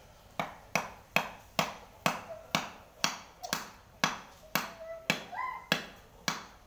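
Sharp knocks in a steady rhythm, about two a second, from a knife being struck to drive its handle onto the blade's tang.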